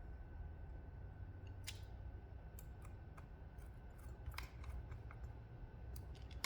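Scattered faint clicks and light taps of small hard parts being handled: the drive caddy, screws and screwdriver as an SSD is fitted into a laptop, over a faint steady hum.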